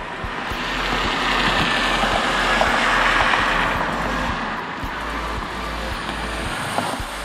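Prototype Ram heavy-duty pickup truck driving past, its engine and tyre noise rising to a peak about three seconds in and then fading.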